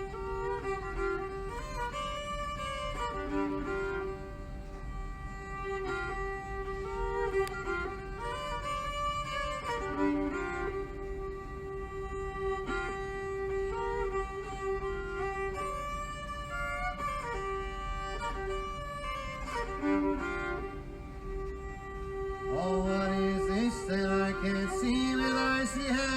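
Instrumental music led by a bowed fiddle melody, slow and sustained. Near the end a lower, fuller part joins in.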